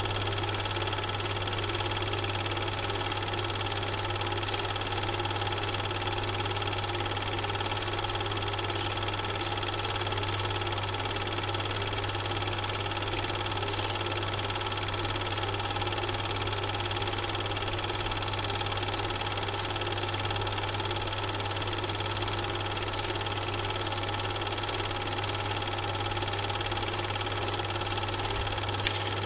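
Steady mechanical drone with a strong low hum and even hiss, unchanging throughout, with one small click near the end: the running noise of a Super 8 film projector, since the film itself was shot silent.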